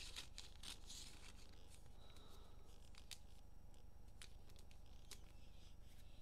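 Faint, scattered rustling and light clicks of trading cards and cellophane-wrapped card packs being handled and opened.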